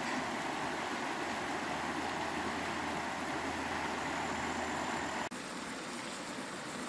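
Steady rush of a river running over rocks and small rapids, cutting off abruptly about five seconds in to a quieter steady background.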